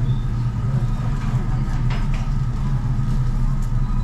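Steady low mechanical hum of a tabletop yakiniku grill's burner and extraction fan, with a few faint clicks of tongs on the grate.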